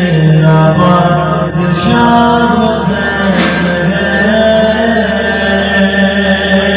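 A male voice sings a devotional chant (a noha) in long, held, wavering notes.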